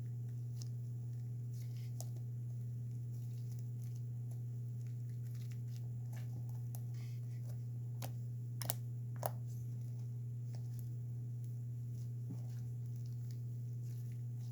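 Fluffy shaving-cream slime being poked and squished by hand, with scattered small sticky clicks and pops, two sharper pops a little past halfway, over a steady low hum.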